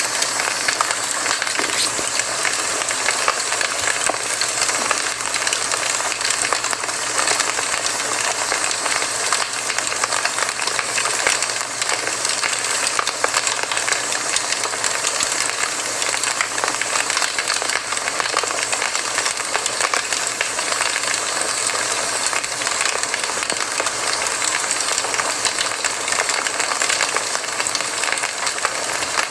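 Campfire crackling: a steady hiss with many small pops and snaps scattered throughout.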